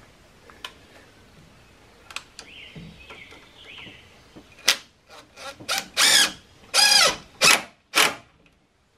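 DeWalt 20-volt brushless cordless impact driver driving a screw into pressure-treated lumber to fasten a wooden gusset. It runs in short trigger bursts from about halfway in, with two longer hammering runs of about a second each near the end, then stops.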